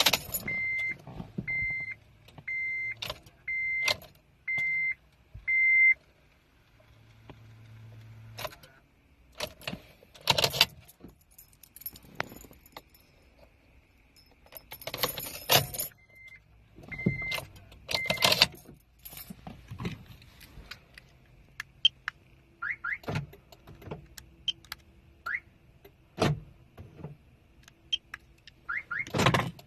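Dashboard warning chime beeping about once a second, then keys jangling as the ignition key is turned over and over in a 2006 Acura RSX Type S, with a brief low hum and more beeps partway through. No cranking or clicking follows: the fault turned out to be a faulty starter.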